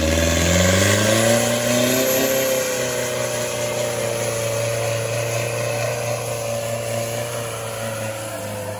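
A modified off-road 4x4's diesel engine revving hard under load as the truck churns through deep clay mud, its pitch rising over the first couple of seconds and then held high.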